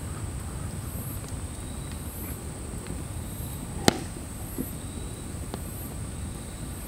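Wood fire under a grill crackling, with scattered small pops and one sharp, loud crack about four seconds in.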